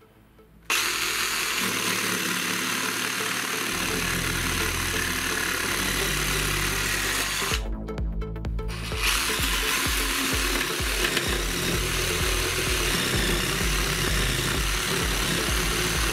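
P.I.T. PST20H-70A/1 20 V cordless jigsaw running and cutting through a wooden board, starting abruptly under a second in. The sawing breaks off for about a second and a half midway, then carries on. Background music plays throughout.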